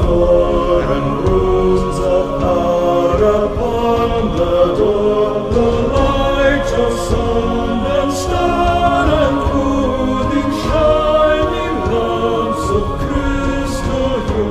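Choral vocal ensemble singing a slow song in layered, mostly low voices.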